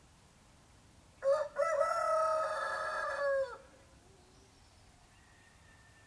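A rooster crowing once: a short first note, then a long held cock-a-doodle-doo lasting about two seconds that falls away at the end. Faint birdsong lies underneath.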